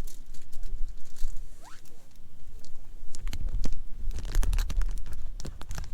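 Wood campfire crackling, with sharp pops and snaps that come thicker about three seconds in, over a low rumble.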